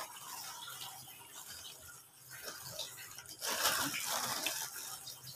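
Aluminium foil wrapper crinkling as it is handled and opened: faint rustling at first, then louder crackling about three and a half seconds in.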